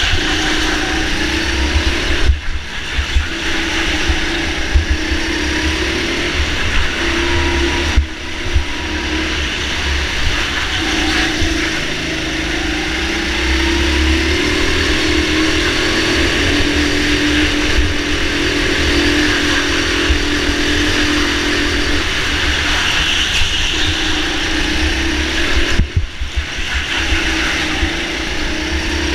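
Go-kart motor heard from on board, its pitch rising and falling with speed through the corners over a deep rumble. The sound dips briefly three times.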